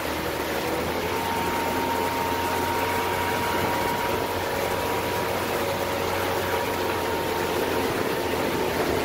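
Pontoon boat's outboard motor running steadily as the boat moves along, with wind and water rush laid over its hum.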